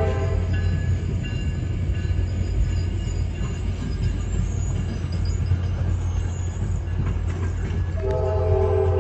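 Tri-Rail commuter train's air horn sounding a multi-note chord that cuts off just after the start and sounds again about eight seconds in, over a steady low rumble of the train moving through.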